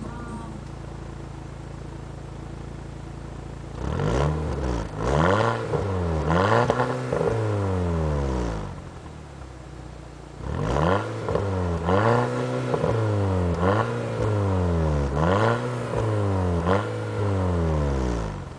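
Volkswagen Scirocco R's turbocharged 2.0-litre four-cylinder engine through its stock exhaust with the flap closed, idling and then blipped from idle in quick revs that rise and fall. One run of about four revs is followed by a few seconds of idle, then a second run of about five revs.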